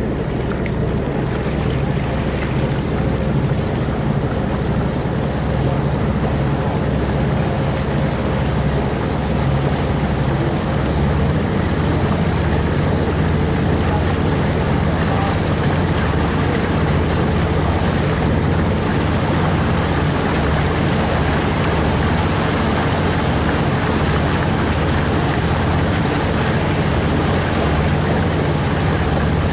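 Engine of the boat carrying the microphone running steadily at cruising speed, a constant low drone, with a hiss of wind and moving water over it that grows after the first few seconds.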